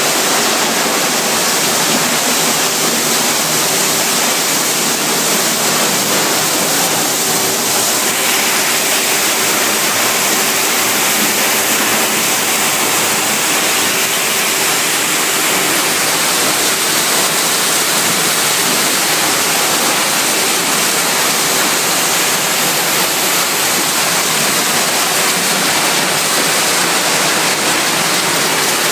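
Waste plastic washing machine running, with water rushing through it in a loud, steady noise and a faint machine hum underneath.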